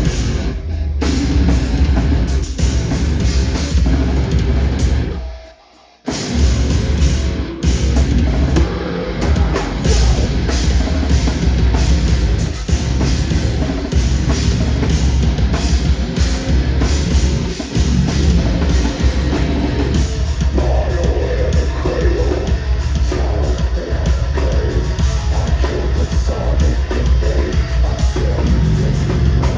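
Loud live heavy rock band playing, with drum kit and guitars. The band stops dead briefly about five seconds in, then the full band comes back in and plays on steadily.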